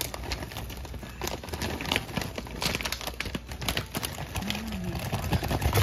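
Crawfish being dumped from a bag into a pot of boiling water: a dense run of crinkling and clattering shells, with the bag rustling.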